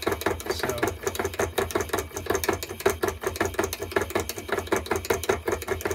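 Homemade spiral magnetic motor test rig running, its rotor kept spinning by a solenoid kicking it past the magnetic gate, pulsed through spring contacts on copper foil tape. It makes a rapid, even mechanical clatter over a low hum.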